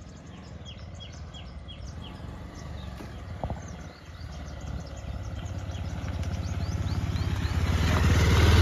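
Motorcycle engine running as the bike rides up close. Its low, even beat grows steadily louder and is loudest near the end. Small birds chirp repeatedly through the first half.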